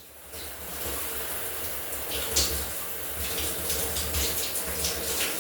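Shower water running steadily, with a few brief louder splashes.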